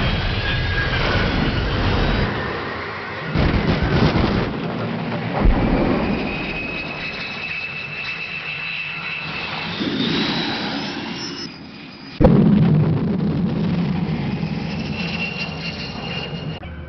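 Race car engine running hard amid whining, jet-like effects in a film chase soundtrack, with loud surges and a sudden bang about twelve seconds in.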